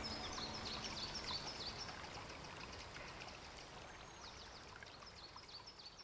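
Woodland ambience: small birds chirping in quick, high, downward-sweeping notes over a steady rushing hiss, the whole fading slowly down.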